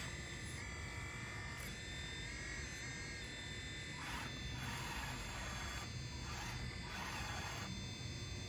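The small electric motors and hydraulic pump of an RC Bobcat skid steer model whine as it is worked, the pitch wavering as the controls change. A rougher noisy sound comes in twice in the second half.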